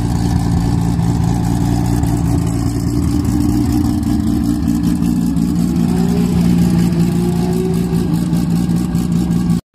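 Toyota Supra's turbocharged 2JZ straight-six idling steadily, with a slight rise in pitch about six seconds in.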